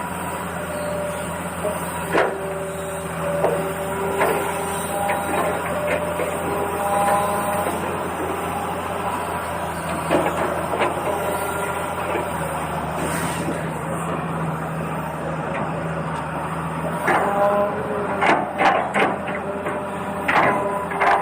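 Small electric motors of a radio-controlled toy excavator whirring steadily, with short changes in pitch as they start and stop, and a run of plastic clicks and knocks near the end.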